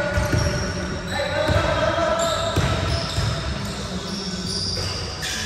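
Basketballs bouncing on a hardwood gym floor in repeated dull thumps, with sneakers squeaking and players' voices echoing in the large hall.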